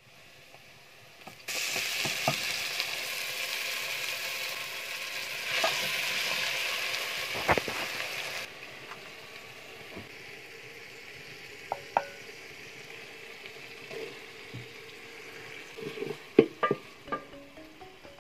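Chopped onions sizzling in hot oil in an aluminium pot, a strong hiss for about seven seconds before it drops away, followed by a few sharp clinks of a spoon against metal near the end.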